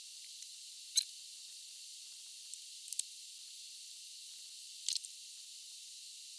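Soldering iron working fluxed joints on a circuit board: three short crackling sizzles, about a second, three seconds and five seconds in, over a steady faint hiss.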